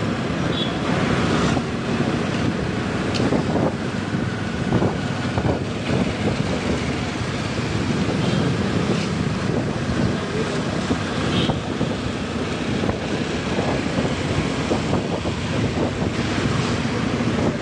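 Wind rushing over the microphone of a moving motorbike, with the bike's engine and road and traffic noise running steadily underneath.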